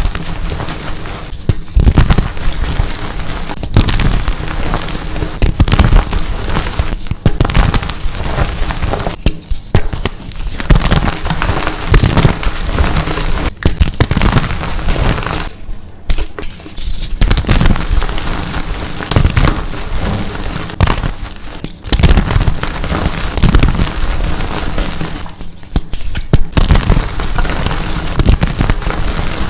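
Dyed gym chalk pieces shaped as pumpkins being crushed and crumbled, a dense, crispy crunching and crackling with a few short pauses.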